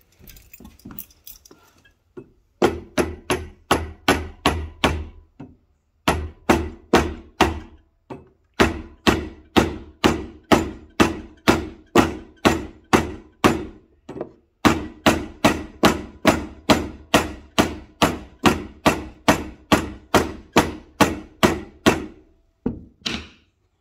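Rubber mallet blows on a steel chain sprocket, driving it onto the shaft of an electric traction motor as an interference fit. The blows come at about three a second in four runs with short pauses between them.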